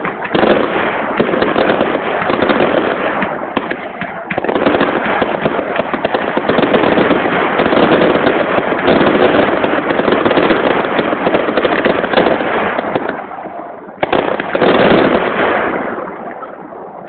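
Fireworks display: a rapid, dense salvo of bursts and crackling, with short lulls about four seconds in and again near fourteen seconds, fading out near the end.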